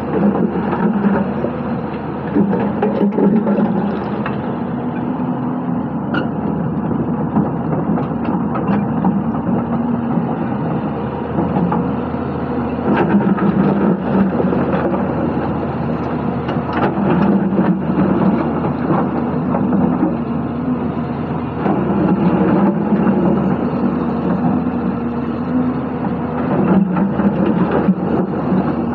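Hyundai 220-9S crawler excavator's diesel engine running under load, its note swelling and easing every few seconds as the hydraulics work through dig cycles. Scattered knocks of rock against the bucket.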